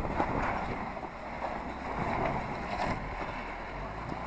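Jeep Wrangler Unlimited Rubicon's V6 engine running as it crawls over rock ledges, with wind rushing over the microphone.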